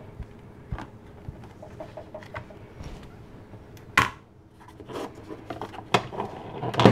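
Paper and craft tools being handled on a cutting mat: soft taps and rustles, with a sharp knock about four seconds in and another near the end.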